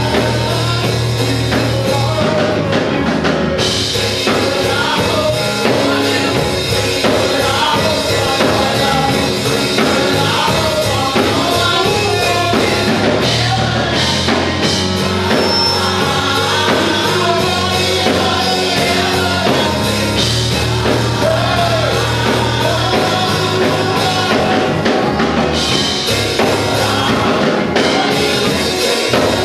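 Church praise team of several singers on microphones, singing a gospel song over a live band of keyboard, drum kit and bass guitar, loud and steady.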